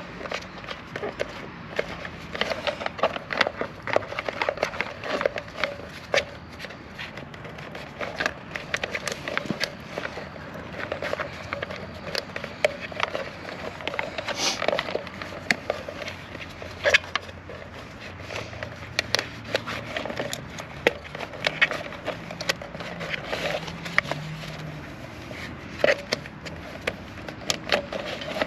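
Corrugated plastic wire loom crackling and clicking as it is twisted and worked over wiring by hand: a steady run of small, irregular clicks and scrapes.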